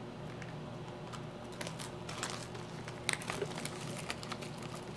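A thin cardboard shipping box being opened and the small retail software box handled: a run of small crisp clicks and rustles of cardboard, starting about a second and a half in, over a faint steady hum.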